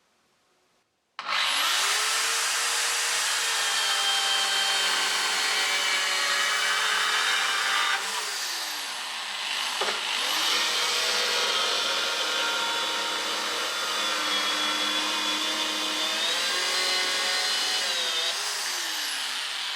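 Bosch AdvancedCut saw with a NanoBlade mini chain bar starting up and cutting through melamine-faced chipboard: a steady motor whine with a hiss of cutting. About eight seconds in its pitch drops and climbs back up, and it winds down near the end.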